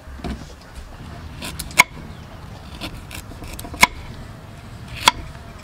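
Kitchen knife knocking against a wooden chopping board while a root is pared: three sharp knocks a second or more apart, with fainter ticks of the blade between them.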